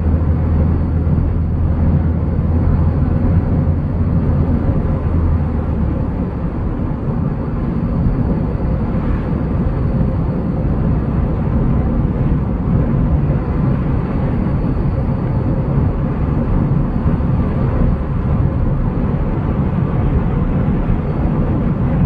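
Car driving at speed on a paved road, heard from inside the cabin: a steady rumble of engine and tyres. A low drone in the rumble fades about six seconds in.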